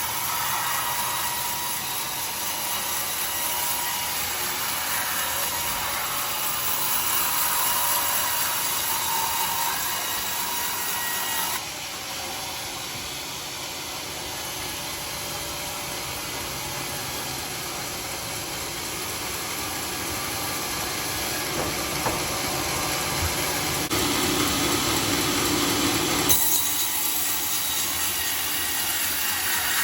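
Sawmill saw running steadily through dry teak wood, a continuous loud mechanical sawing noise that changes tone abruptly a few times.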